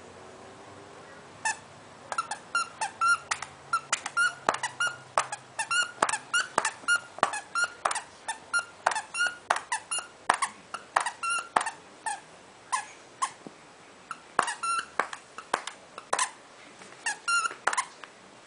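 A rubber squeaky dog toy squeezed over and over in a Pomeranian's jaws: quick runs of short, sharp squeaks, two or three a second, starting about a second and a half in, with a short lull about two-thirds of the way through.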